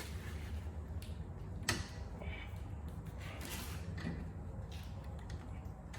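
A hand wrench breaking loose the 14 mm rear brake caliper bolt, a bolt left untouched for ten years: a sharp click a little under two seconds in, then a short scraping creak about a second and a half later. A steady low hum runs underneath.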